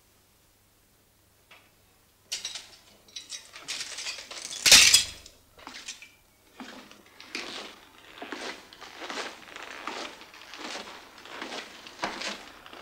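After a couple of seconds of quiet, clattering knocks, then one loud heavy crash near the middle. Slow, regular footsteps follow on a wooden floor, about one and a half steps a second.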